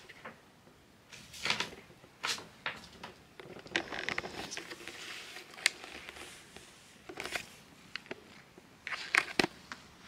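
A kitten playing at close range: irregular rustles, crinkles and light taps, like a small animal scrabbling at a paper bag, with a louder cluster of clicks near the end.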